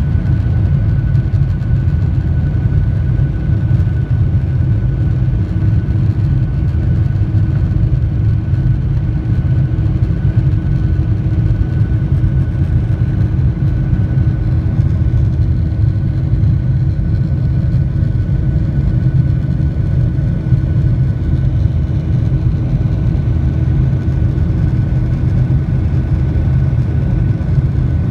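Cabin noise of a Boeing 737-800 in its climb after takeoff, heard from a window seat beside the wing: the CFM56-7B turbofans give a steady low roar with a steady whine on top.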